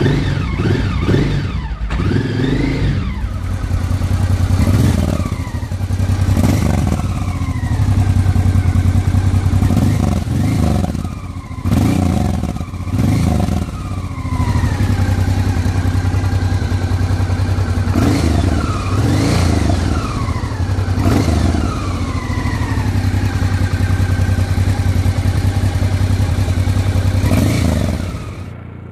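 Honda XRV750 Africa Twin's 750 cc V-twin engine idling, with about a dozen quick throttle blips that rev it up and let it fall back to idle.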